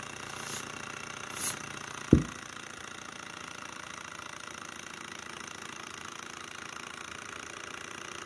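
Bohm HB14 twin Stirling model engine running with steady mechanical noise from its many moving parts as it is oiled, with two short hisses of spray lubricant about half a second and a second and a half in. A single loud knock just after two seconds as the spray can is set down on the table.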